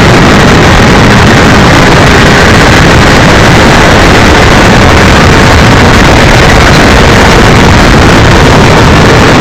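Motorcycle riding at speed heard from an onboard camera: a loud, steady rush of engine and wind noise that overloads the microphone.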